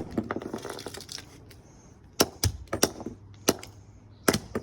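Hammer blows smashing a power cord's plastic housing and the circuit board inside: one hard strike followed by about a second of crackling, breaking debris, then a run of separate blows about two seconds in, some in quick pairs.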